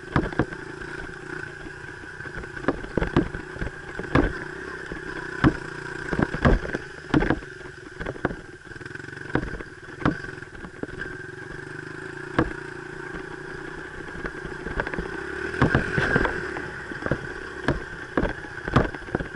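Dirt bike engine running at a fairly steady speed, with many sharp knocks and jolts scattered throughout.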